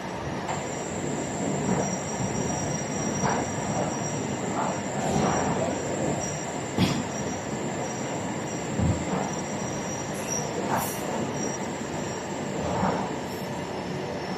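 Plastic moulding machinery running: a steady mechanical din with a constant high whine, broken by irregular clanks and knocks every second or so.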